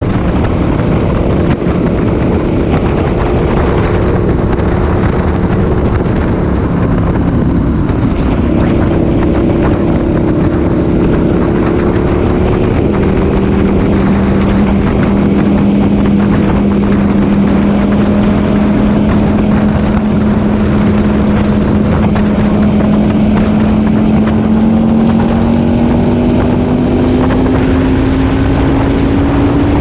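Aprilia Tuono 1000R's V-twin engine running under way, its note shifting twice around 8 and 13 seconds in, then rising slowly as the bike gains speed. Heavy wind noise on the microphone runs underneath.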